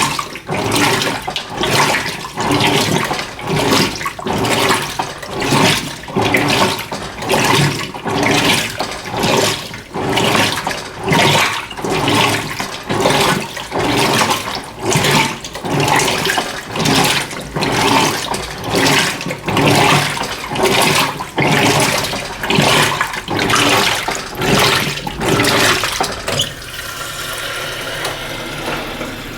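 Electrolux LF90 top-loading washing machine agitating rugs in low water: a steady rhythm of sloshing water surges, a little over one a second. About three-quarters of the way through the agitation stops and a steady rush of water takes over.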